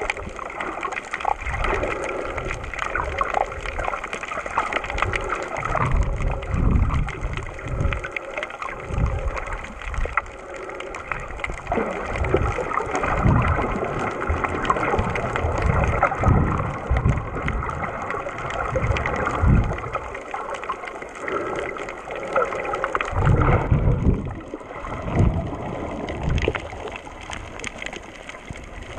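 Muffled water sloshing and gurgling, heard underwater through a GoPro's waterproof housing, with irregular low surges every second or two.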